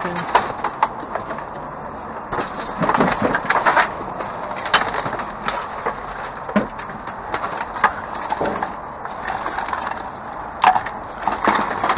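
Discarded goods being rummaged through and shifted around inside a dumpster: irregular knocks and clatters with crackling, as hard objects are picked up and knocked against one another.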